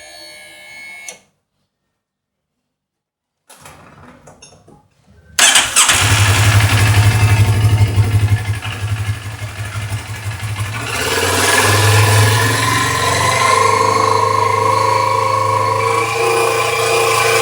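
Hartford 650 motorcycle engine starting abruptly about five seconds in and running, then revved up around eleven seconds in and held at higher revs. This is the speed range where the owner reports a knocking from the engine at 3500–4000 rpm.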